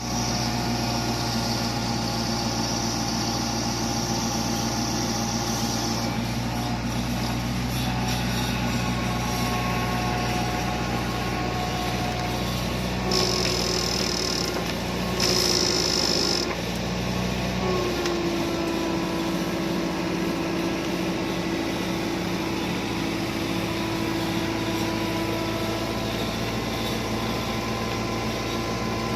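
A heavy engine running steadily with a mix of humming tones, joined twice near the middle by a short high whine.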